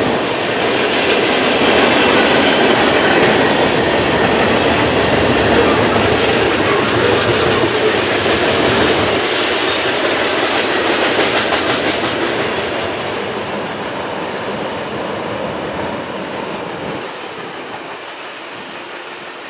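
Freight train of boxcars and tank cars rolling past close by: a dense, steady rumble of wheels on rail, with harsh high-pitched screeching for a few seconds partway through. It grows quieter toward the end as the train moves away.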